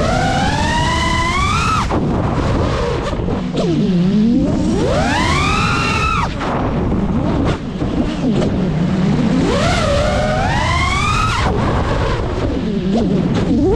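Geprc Mark5 5-inch FPV quadcopter's motors and propellers whining in long repeated surges: the pitch drops low as the throttle is cut, then sweeps up high as it is punched again, about every four to five seconds. Wind rumble runs underneath.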